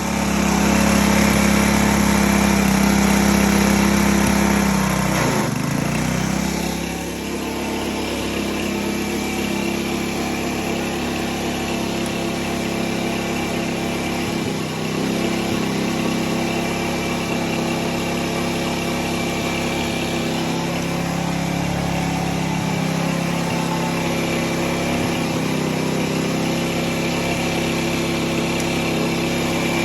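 Small gasoline engine of a 2.5 GPM pressure washer running steadily. It gets somewhat quieter about five to seven seconds in, then carries on at an even pitch.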